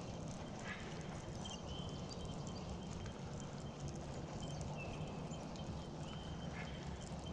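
Fishing reel being cranked to retrieve a lure, a steady rhythmic clicking clatter, with faint high chirps now and then.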